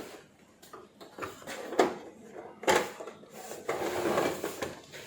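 Scattered plastic clicks and knocks as an LED TV's plastic back cover is pressed down and snapped into its locks, with handling noise between them.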